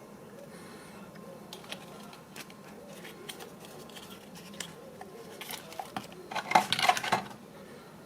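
Small hard plastic parts clicking and tapping as in-ear earphones and their cable are handled. The clicks are scattered at first, then a denser, louder run of clicks and rattling comes about six and a half seconds in.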